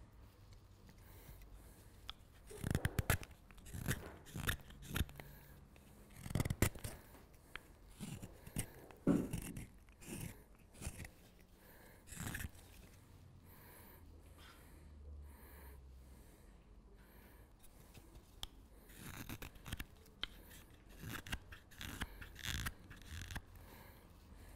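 Carving knife slicing alder wood: a run of short, uneven cuts, a pause of several seconds midway, then more cuts.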